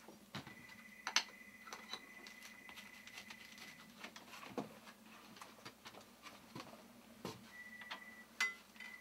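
Faint, scattered clicks and taps of hand tools working at a door threshold, with a thin high tone that comes and goes.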